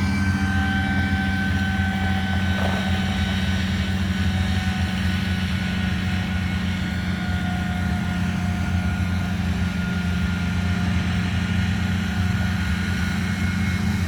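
A heavy engine running steadily, a constant low drone with a faint high whine over it.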